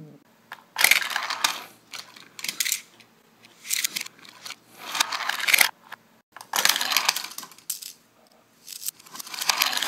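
A series of short scraping, clattering bursts with quiet gaps between them, from small toy trains being knocked about and handled on a paper-covered tabletop and plastic playset.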